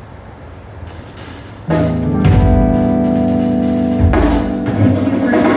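Live hardcore/screamo band coming in suddenly about a second and a half in, after a quiet low buzz: loud sustained guitar chords over cymbal crashes and kick drum.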